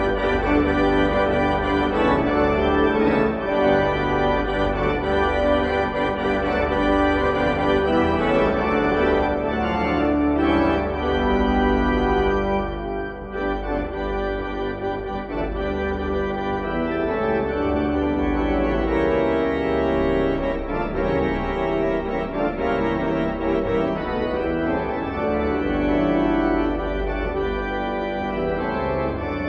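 Organ music: sustained chords and long held notes, with a brief dip in loudness about thirteen seconds in.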